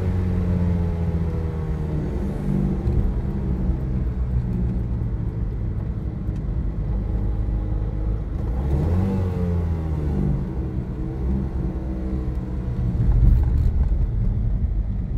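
Alfa Romeo Alfetta engine heard from inside the cabin while driving, with gear changes: the engine note falls over the first couple of seconds, then rises and drops again about nine seconds in.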